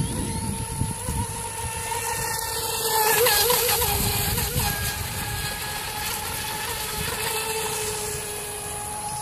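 Brushless electric motor of an Atomik Barbwire XL RC race boat running at speed, a steady high whine that gets loudest and wavers in pitch about three seconds in, then fades slowly as the boat runs away.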